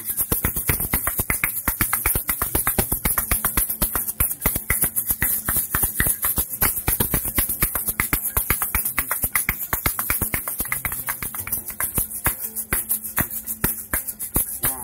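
Asalato (kas kas), a pair of small maraca-like shakers joined by a cord, played fast: the swinging shaker clacks against the one held in the palm in a rapid, even stream of clicks, many a second, with the filling inside rattling.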